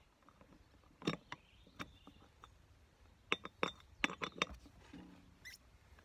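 Sharp metallic clinks of lug nuts and a lug wrench against a tractor's steel wheel hub while the wheel nuts are being put on. The clinks are spaced irregularly, with a quick cluster a little past the middle.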